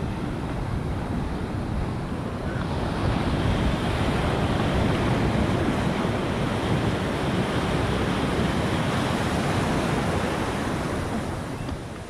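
Ocean surf: large waves breaking and foam rushing over the shallows, swelling louder about three seconds in and easing off near the end.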